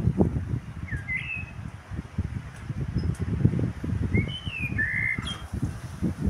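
Common blackbird singing two short fluting phrases of gliding whistles, one about a second in and a longer one about four seconds in, over a loud low rumbling background noise.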